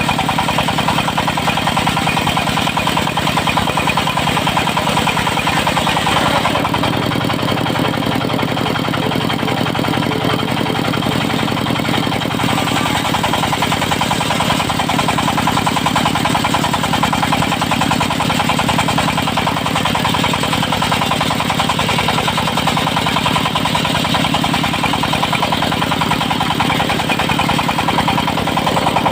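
Diesel engine of a mobile circular sawmill with a 70 cm saw blade, running steadily with an even pulsing beat. The sound dulls for several seconds from about six seconds in, then comes back brighter.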